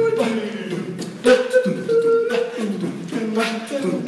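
A person beatboxing a beat: mouth-made drum hits mixed with a pitched vocal line, backing a Spanish rap.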